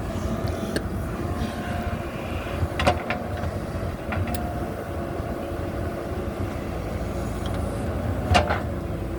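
JCB backhoe loader's diesel engine running steadily while it works, with a few sharp knocks from the machine, the loudest about three seconds in and again near the end.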